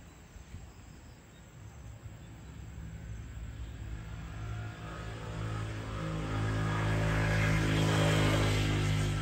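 A passing engine: a steady droning hum that grows louder from a few seconds in and is loudest near the end.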